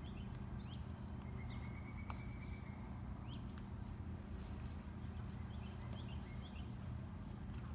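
Outdoor ambience: scattered short bird chirps and a brief trill over a steady low rumble, with a single sharp click about two seconds in.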